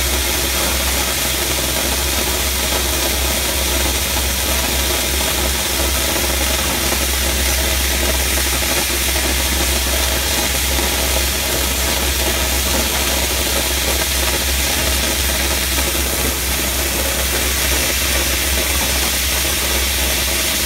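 Dry ice blasting nozzle hissing steadily as it blasts paper and glue off brick, over a steady low engine rumble.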